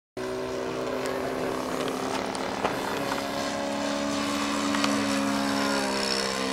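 Model aeroplane engine running steadily at a constant pitch, with a small shift in pitch about six seconds in.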